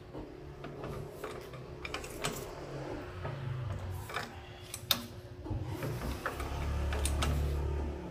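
Hydraulic floor jack being worked with its long handle, giving irregular metal clicks and knocks about once a second. A low hum swells near the end.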